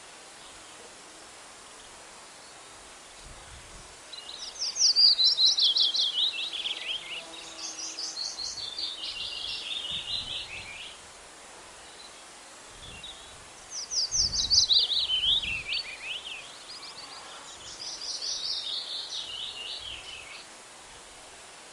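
A songbird singing twice, each song a fast, loud trill of notes sliding down in pitch, followed by a quieter trill lower down. A steady background hiss of outdoor ambience runs under it.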